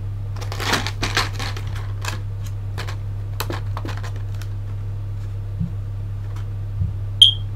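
Plastic action-figure packaging being handled, giving short clicks and crackles in the first few seconds, over a steady electrical hum. A single sharp, brief high ping near the end.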